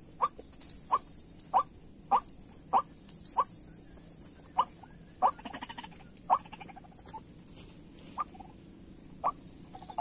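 White-breasted waterhen calling: short, loud notes repeated about every 0.6 s, thinning out and growing quieter after about 7 seconds. A buzzy rattling call runs from about five to seven seconds in.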